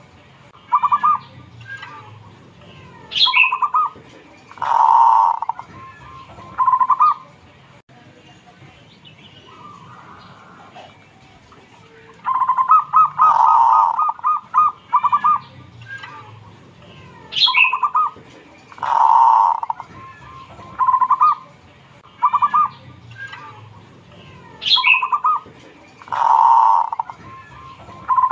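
Caged zebra dove singing its cooing song in four bouts, each a run of short clipped coos with one longer, fuller coo, separated by pauses of a few seconds.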